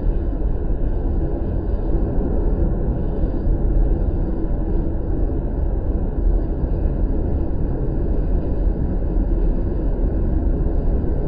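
Tornado winds: a steady, loud, low rushing noise that does not let up.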